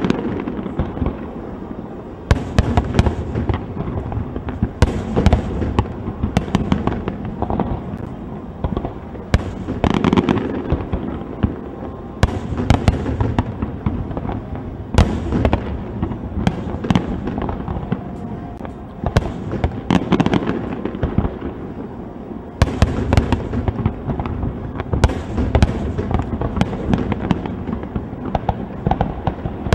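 Aerial firework shells bursting in quick succession: deep booms mixed with many sharp bangs and crackles, with no real pause between them.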